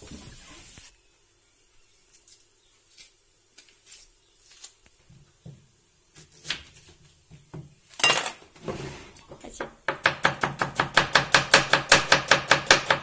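Kitchen knife slicing an onion on a wooden cutting board. A few scattered taps are followed, from about ten seconds in, by a fast, even run of chops, about eight a second.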